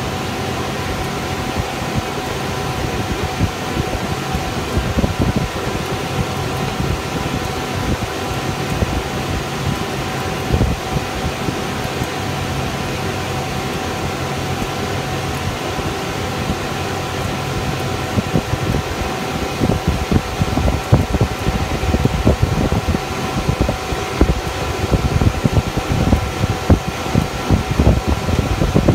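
KC-135 cockpit noise: the jet engines running with a steady whine of a few held tones over a constant hum. From about twenty seconds in, a low rumble grows rougher and bumpier as the aircraft rolls along the runway.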